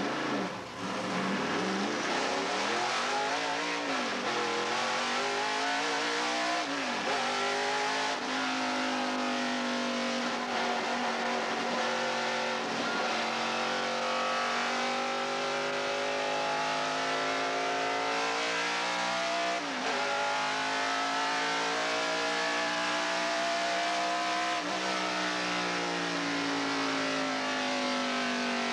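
NASCAR race truck's V8 engine heard from inside the cab, accelerating hard through the gears: the pitch climbs and drops back at about three shifts in the first eight seconds. It then runs at high revs with two brief dips later on.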